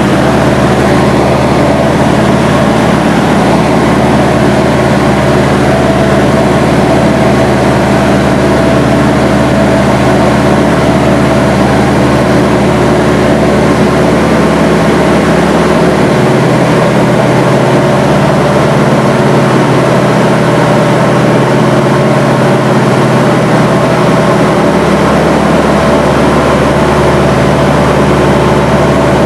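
The twin Pratt & Whitney R-985 radial engines and propellers of a Beechcraft C-45 Expeditor (Beech 18) droning steadily, heard inside the cabin on the descent to the runway. The deepest part of the drone drops away for several seconds midway.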